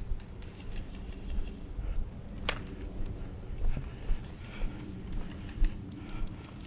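Footsteps of a player walking briskly over grass, with the worn gear jostling at each step. There is a single sharp click about two and a half seconds in.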